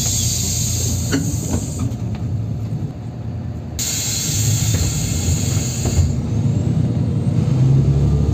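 Inside a NefAZ 5299 city bus under way: a steady low engine drone and road noise. A hiss comes in twice, each time for about two seconds, and a slowly rising whine starts near the end.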